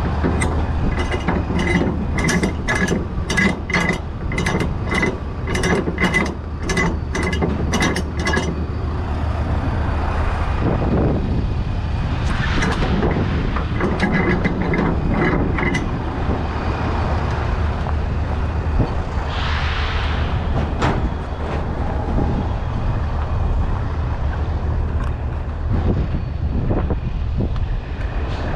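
Steady low rumble of an idling diesel truck, with a run of sharp clicks about twice a second through the first eight seconds or so, then scattered handling noises.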